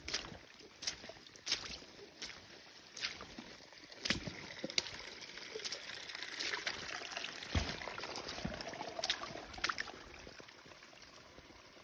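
Footsteps splashing through shallow water running down a rocky trail, roughly one step every three-quarters of a second, over the trickling rush of the water. The running water grows louder about four seconds in and eases near the end.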